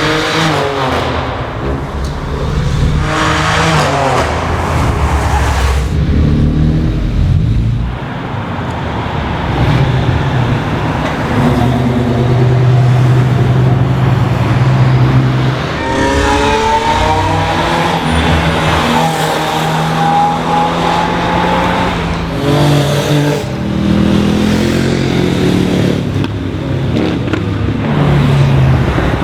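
A string of cars passing at speed one after another. Their engines rev and change pitch as each one goes by, with a clear rising acceleration about halfway through.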